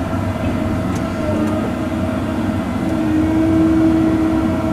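Cat 309 mini excavator's diesel engine running under load while the machine works stumps, with a steady whine that grows louder about three seconds in and then eases.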